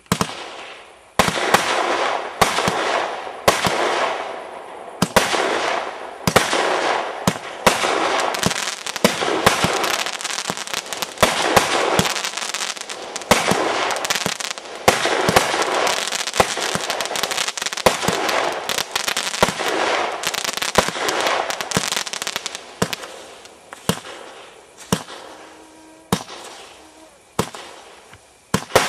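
Consumer firework cake (a 36-shot, 20-calibre battery) firing shot after shot, about once a second. Each bang is followed by a spell of dense crackling from the crackle stars.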